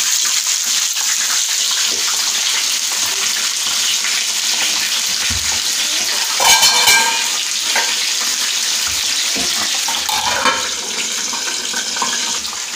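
Whole green chillies deep-frying in hot oil in a kadhai: a steady, dense sizzle, with a brief louder burst about six and a half seconds in.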